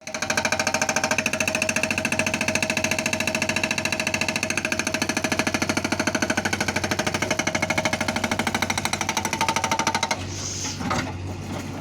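Hydraulic rock breaker on an excavator hammering at stone in a rapid, even rattle of about ten blows a second with a ringing tone. It stops abruptly about ten seconds in, leaving the machine's engine running.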